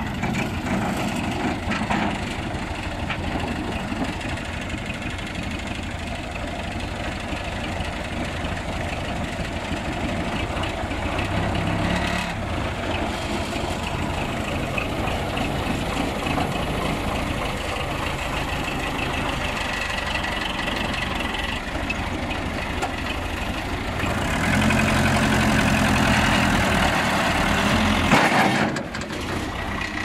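Case 580D backhoe loader's diesel engine running under load as it drags a bogged forklift out of soft ground. It pulls harder and louder for a few seconds near the end, then drops back suddenly.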